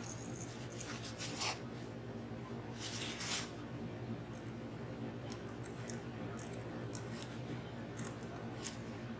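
Metal dip-pen nib scratching short strokes of enamel paint onto a glass sheet, a longer stroke about three seconds in and quick light strokes through the second half, over a steady low hum.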